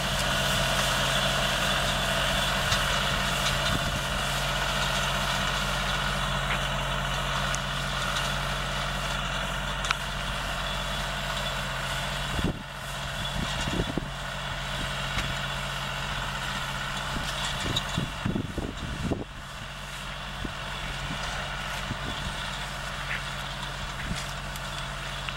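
Tractor engine running steadily while it drives an automatic gun sprayer, with a steady hiss above the engine note. The sound drops in level about halfway through, and irregular low thumps come and go in the second half.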